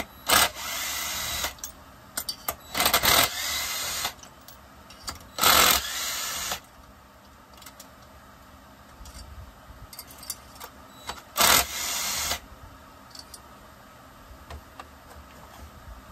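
Cordless power driver running in four short bursts of about a second each, backing out the cylinder bolts of a Husqvarna 357XP chainsaw during teardown. Each burst opens with a sharp loud hit, then runs steadily.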